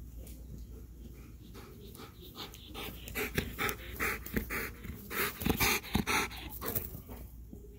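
A Belgian Malinois panting hard after chasing a ball, short rapid breaths at about three a second that grow louder a few seconds in.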